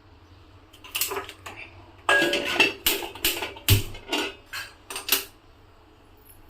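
Metal cookware clattering and clanking: a quick run of knocks and ringing clinks over about four seconds as a pot is set up on the gas stove for steaming.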